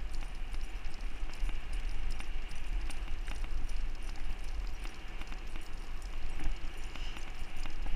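Two huskies running in harness, pulling a wheeled rig over asphalt: a steady rumble of rolling wheels and wind on the microphone, with a light, irregular patter of footfalls.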